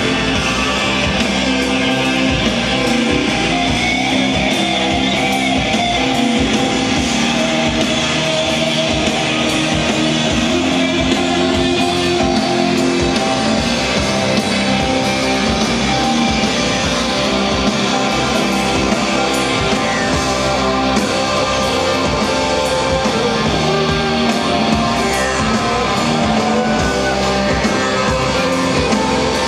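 Psychedelic rock band playing live: electric guitars, drum kit and keyboard, loud and steady throughout.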